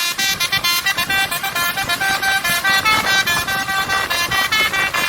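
Truck's 'basuri' telolet horn, a set of musical air horns, playing a quick melody of short notes, about five a second, at changing pitches.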